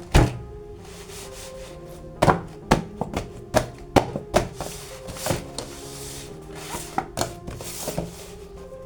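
Hands unboxing plastic toy figures: uneven sharp clicks and knocks of plastic parts and packaging being handled, with a few short rustles, over background music with held tones.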